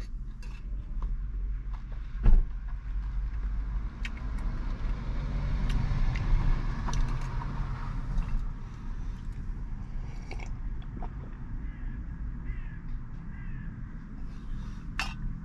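Low steady hum of an idling vehicle engine, heard from inside a van cabin. A fork clicks and scrapes against a tin as food is eaten, with one sharper knock about two seconds in.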